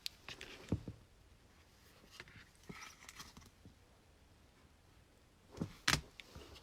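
Trading cards being handled: soft rustling and sliding with a few short sharp clicks, two of them more distinct, about a second in and near the end.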